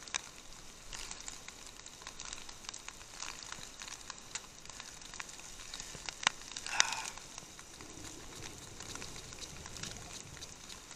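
Rain pattering close to the microphone, heard as a light hiss full of small irregular ticks, with two sharper knocks about six and a half to seven seconds in.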